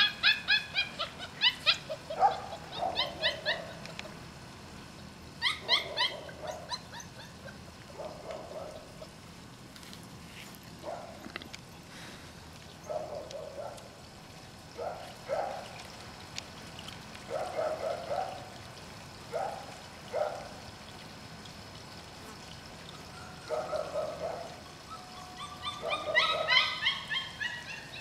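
Šarplaninac puppies whining and yipping. Quick series of high cries come near the start, around six seconds in and again near the end, with short, lower whimpers scattered in between.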